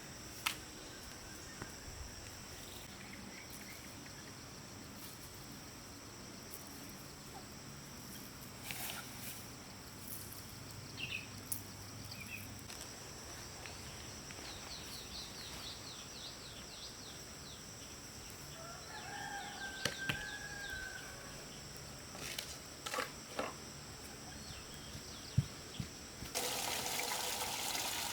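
Outdoor farmyard sound: a steady high hum with scattered knocks and a few short bird calls, then running water starting loudly near the end.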